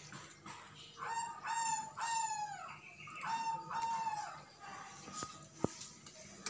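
A series of short, high animal calls, each rising and then falling: three in quick succession, then two more after a brief gap. A single sharp click follows near the end.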